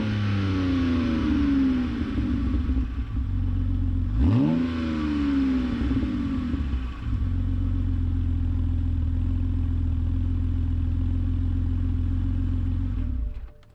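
BMW 128i's 3.0-litre straight-six running with its muffler removed. Its revs fall back from a throttle blip at the start, and a second blip rises and falls about four seconds in. It then idles steadily until the sound cuts off suddenly near the end.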